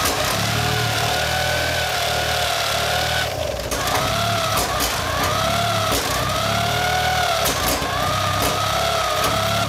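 Supercharged 50cc two-stroke engine being spun over by a hand-held electric starter in repeated pushes of one to three seconds, the starter whining up and down in pitch with each push. The engine cranks but does not fire, which the owner puts down to it not getting fuel.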